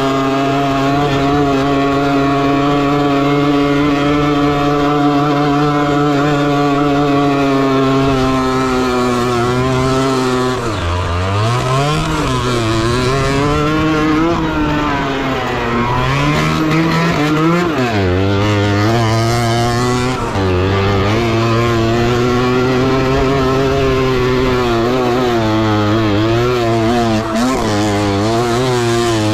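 A Balkan 50 race bike's small two-stroke engine, heard from on board while riding a dirt track. It holds a steady high pitch for about ten seconds, then repeatedly drops and climbs again as the rider backs off and gets back on the throttle.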